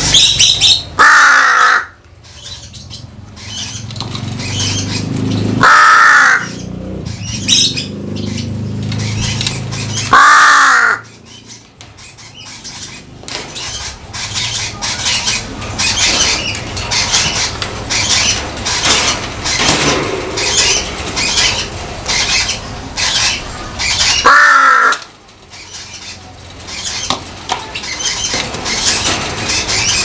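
Crow cawing loudly: five calls of about a second each, spaced unevenly with a long gap in the middle, the last one right at the end. Between the calls there is a steady run of small clicks and rustling.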